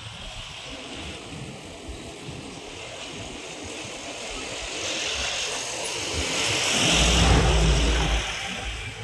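A motor vehicle passing close by: its noise swells over several seconds, is loudest with a deep rumble about seven to eight seconds in, then fades.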